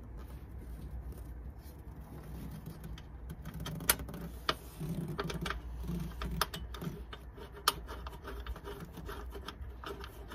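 Scattered light metallic clicks, taps and scrapes of a nut and large washer being worked onto a bolt by hand behind the inner guard, with a few sharper clicks in the middle. A steady low rumble lies underneath.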